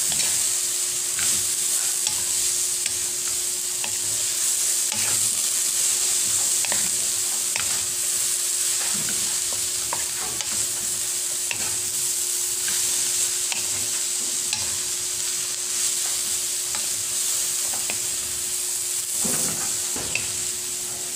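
Sliced vegetables (cabbage, jicama, carrot) sizzling in a hot pan while being stirred and mixed, with the utensil scraping and clicking against the pan every so often.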